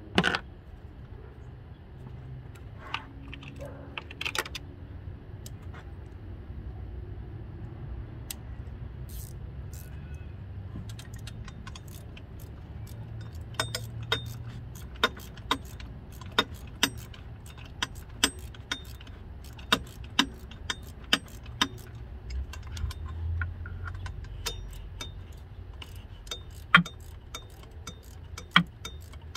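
Sharp metallic clicks and clinks of hand tools on metal under a car's hood: one near the start, a few around three to four seconds in, then a long irregular run of bright metallic ticks from about eleven seconds on, over a steady low hum.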